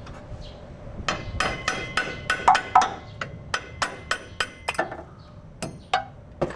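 A hammer striking metal: a quick series of sharp, ringing blows, about three a second, starting about a second in, with a short pause just before six seconds.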